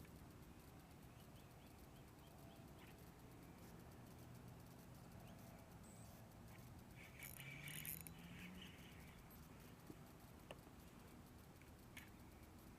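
Near silence: faint outdoor ambience with a low hum that rises slightly, a brief rustle about seven seconds in, and a few faint ticks.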